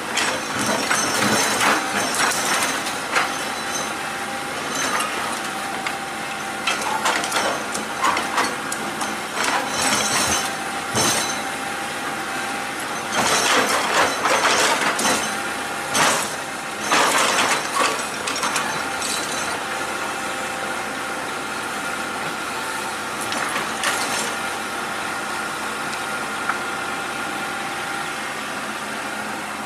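Excavator engine and hydraulics running steadily with a whine, broken by repeated bursts of clanking and scraping from the bucket and machine as it digs and loads; the clatter is thickest in the first two-thirds and dies down near the end.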